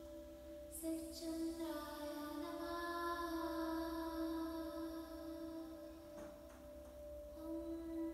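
Background music of long held, chant-like sung notes that change pitch only now and then.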